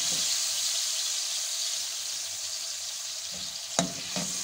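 Butter melting and sizzling in a hot pan, a steady hiss that eases off slightly, with a single sharp knock near the end.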